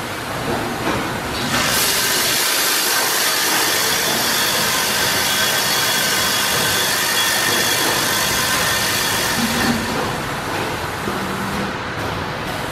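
Compressed air hissing steadily from the coffee-bean packing machine's air-flushing system for about eight seconds, starting about one and a half seconds in, over quieter machine running noise with a few knocks.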